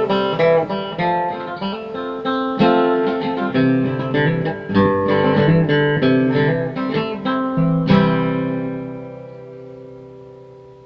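Outro music: solo guitar picking a melody, ending on a strummed chord about eight seconds in that rings out and fades away.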